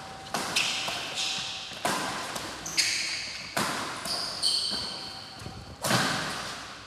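Badminton rally: five sharp smacks of rackets striking the shuttlecock, spaced about a second apart with a longer gap near the end, each ringing on in a large echoing hall. Short high squeaks, typical of court shoes on the floor, come between some of the shots.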